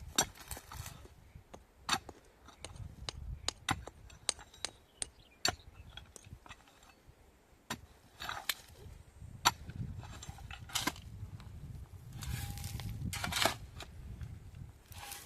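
A string of irregular sharp clicks and knocks, a dozen or so spread out with gaps between them, and a short rough rustling stretch near the end.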